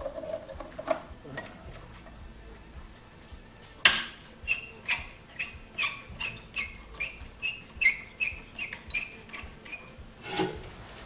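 Radiator hoses being worked loose: a sharp click, then a run of about a dozen short squeaky strokes, roughly two or three a second, and a single knock near the end.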